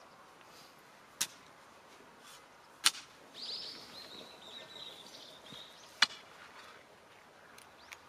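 Three sharp knocks, spaced a second or more apart. Between the second and third, a bird sings a high, warbling call lasting about two and a half seconds.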